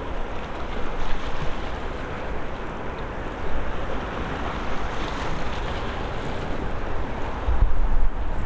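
Wind buffeting the microphone over a steady rushing noise, with the buffets heaviest near the end.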